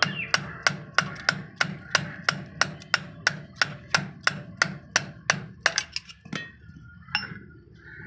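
Hammer blows on steel, about three a second, knocking the left side bearing off the shaft of a round straw baler's crown gearbox. The blows stop about six seconds in.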